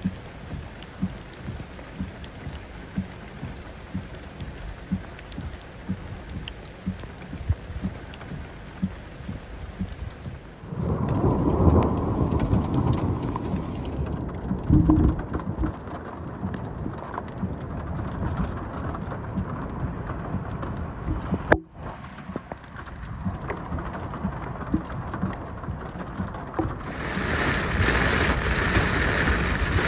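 Thunderstorm: rain falling, at first as a light patter of separate drops, then with deep rolling thunder from about a third of the way in. Near the end the rain turns to a loud, steady downpour.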